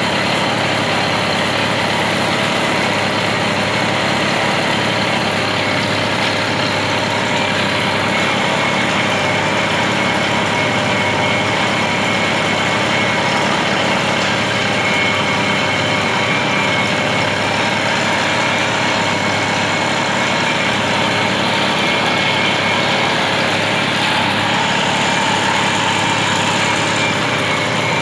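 Engine of a 1980s Hero Majestic moped, a small two-stroke, idling steadily without a break.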